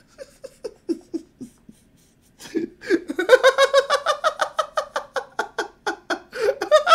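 A man laughing: soft, breathy giggles at first, then from about two and a half seconds in, loud, rapid, high-pitched belly laughter, about five laughs a second.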